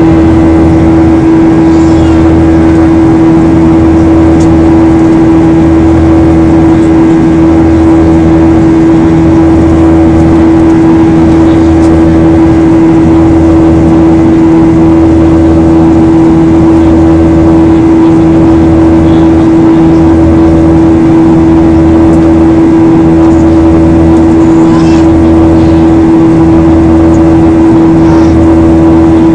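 Cabin noise of a Boeing 737-800 in flight, heard by the window over the wing: the CFM56-7B engines' steady drone with a strong constant hum, and a lower hum that pulses about every two seconds.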